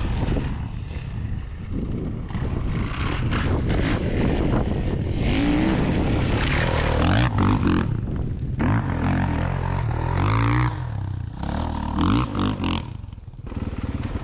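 Kawasaki KX450F single-cylinder four-stroke dirt bike engine, revving up and down again and again as it is ridden over rough trail, with knocks and clatter from the bike. The revs fall away briefly near the end.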